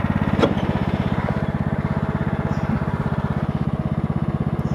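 Craftsman LT4000 lawn tractor engine running steadily with an even, rapid pulse, an engine the owner thinks needs a tune-up for its noise. A single sharp clank about half a second in.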